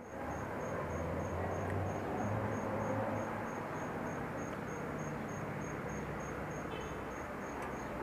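Cricket chirping steadily: a high, even pulse about three times a second, over a low background hum.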